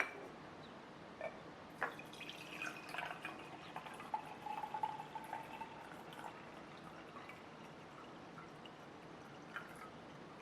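Faint water pouring and dripping into a container, with small clicks and ticks scattered through the first six seconds and only a few after.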